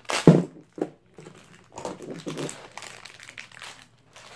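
A clear plastic bag of Beyblade parts crinkling in irregular bursts as it is handled, with one sharp thump about a third of a second in.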